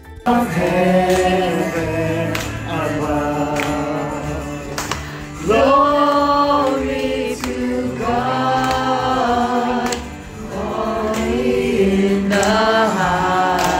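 A group singing a Christian worship song, led by a woman on a microphone. The sung lines are held a second or two at a time over a steady backing.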